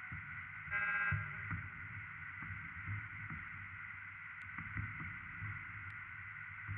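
Circuit-bent office telephone's electronics sounding: a steady electronic hiss and buzz with irregular low crackles and pops, and a brief buzzy tone about a second in.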